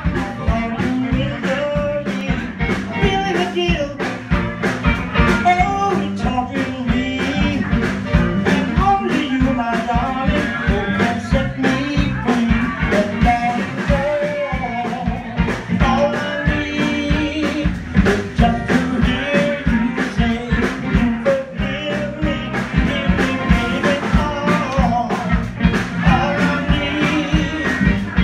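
Live band playing an upbeat number with electric guitars and keyboard over a steady beat.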